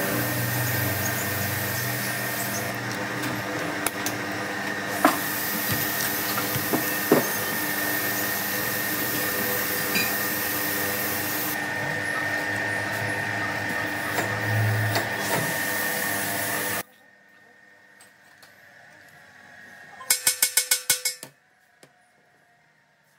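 A power tool running steadily, cutting off suddenly after about seventeen seconds. A few seconds later comes a quick rattle of about ten sharp knocks.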